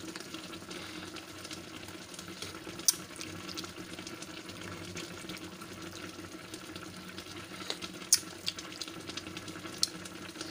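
Adobong bangus broth simmering in a pan on the stove: a steady bubbling hiss with a few sharp pops, the loudest about three and eight seconds in, over a low steady hum.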